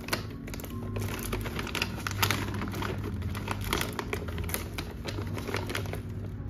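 Scissors cutting through a plastic courier mailer bag, with the plastic crinkling and rustling in many quick, irregular snips and crackles.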